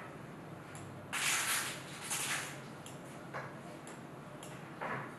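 A knife scraping through layered ruqaq pastry in a baking tray: a few short scraping strokes, the loudest about a second in and just after two seconds, with softer ones later.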